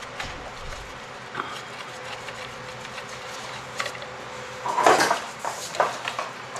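Scattered small metal clinks and tool-handling noises over a low steady background, with a short louder clatter about five seconds in.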